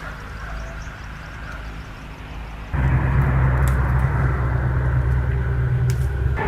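A quieter stretch of background noise, then an engine running steadily and loud and low, cutting in abruptly about three seconds in.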